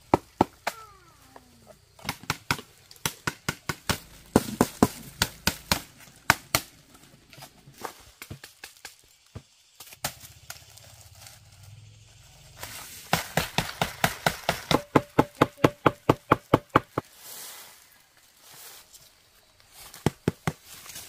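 Repeated sharp chopping blows from a hand tool, about four a second, in runs separated by short pauses; the longest and loudest run comes about two thirds of the way through.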